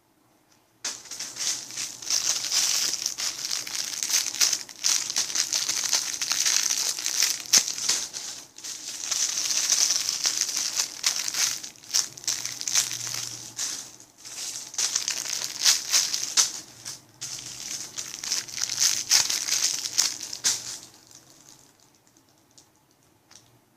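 Plastic crinkling as it is handled and squeezed, almost without a break for about twenty seconds, with short pauses. It starts about a second in and stops near the end.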